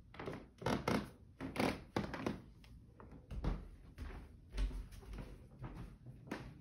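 Footsteps on a hardwood floor, with knocks and rubbing from a handheld phone being carried while walking: a run of irregular thuds and taps, a few a second, with two deeper thumps near the middle.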